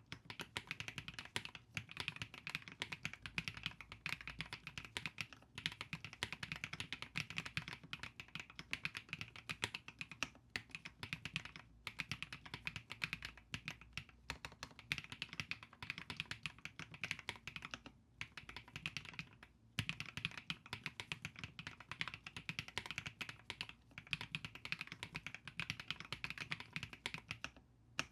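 Typing on an Epomaker Split 70 split mechanical keyboard: rapid, continuous keystroke clicks in runs, broken by a few brief pauses.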